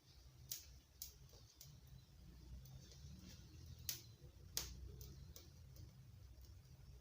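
Newly lit firewood fire crackling faintly, with irregular sharp pops and ticks over a low rumble, two louder pops a little past the middle.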